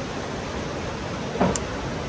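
Steady rushing of a fast mountain creek through a narrow rock canyon, with one short knock about a second and a half in.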